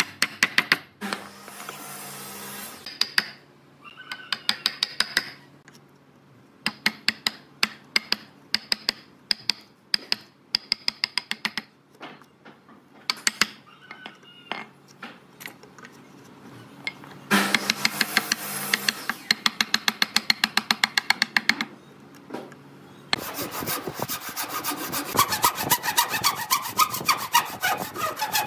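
Mallet striking a wood chisel in groups of quick, sharp blows as it chops into a pine beam. In the last five seconds or so a hand saw takes over, cutting through stacked boards in fast, steady strokes.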